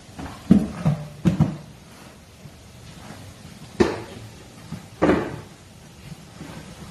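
A series of sharp knocks and thumps: several close together in the first second and a half, then two more about four and five seconds in.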